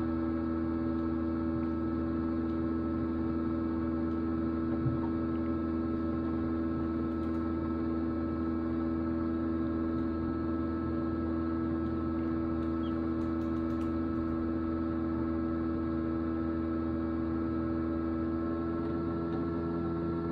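Egg incubator running with a steady electrical hum made of several constant tones. There is one soft tap about five seconds in.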